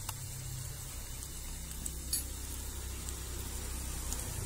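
Thin potato slices frying in hot oil in a small steel pan, a steady sizzle, with one light click about two seconds in.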